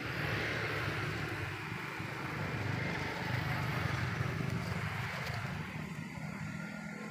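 An engine running steadily: a low hum with hiss that comes in at the start and holds.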